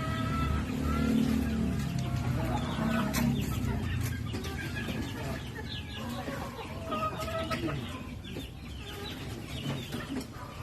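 Chickens clucking, with several birds giving short, repeated calls, and a few sharp clicks among them.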